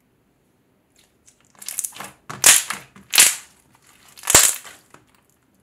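Clear metallic slime squeezed and squished between fingers: a run of crackly, wet squishing noises that starts about a second in, with three loud squishes close together in the middle.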